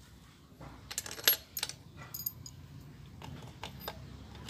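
Small steel bolts clinking against each other as they are handled and picked out of a palmful: a quick cluster of sharp metallic clicks, a brief high ring, then a few more clicks.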